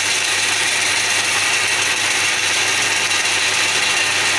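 Power saw running steadily while a block of wood is fed through it, a continuous mechanical whir with sawing noise over a low motor hum.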